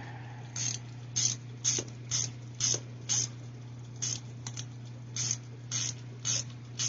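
Hand socket ratchet with a 7mm socket clicking in short back-and-forth strokes, about two a second, over a steady low hum.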